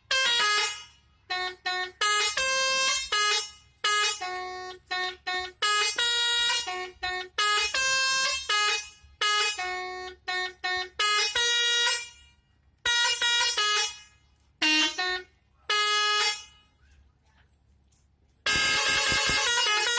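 Bus 'telolet' multi-tone musical horn tooting a string of short jingle-like bursts, the pitch stepping from note to note. The bursts start and stop repeatedly. Near the end there is a pause of about two seconds, then one longer blast.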